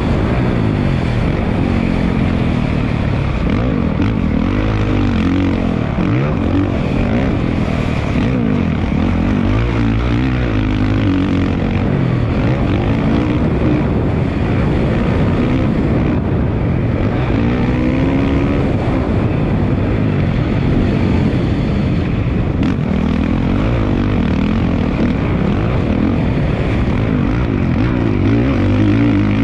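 Dirt bike engine being ridden around a motocross track, its pitch climbing and dropping again and again as it revs up and shifts or backs off.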